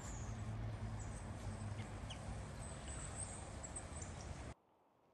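Outdoor churchyard ambience: a steady low hum with a few faint, high bird chirps. It cuts off suddenly about four and a half seconds in.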